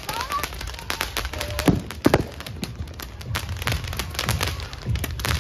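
Fireworks going off all around: a dense, irregular run of bangs and crackles, with two louder bangs about two seconds in.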